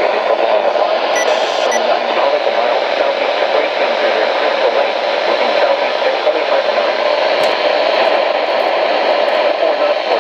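Steady static hiss from a weather radio receiver picking up a weak NOAA Weather Radio signal.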